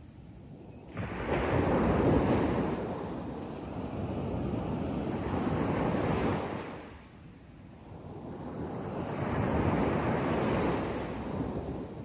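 Small sea waves breaking on a sandy beach and washing up the sand, two in turn. The first breaks suddenly about a second in and runs for several seconds. The second builds up after a lull and fades away near the end.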